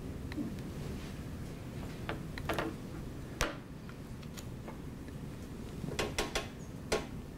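Scattered sharp clicks and taps from someone handling a laptop and its display cable, over a steady low room hum. The clicks are loudest in a quick cluster of three about six seconds in, with one more just before seven.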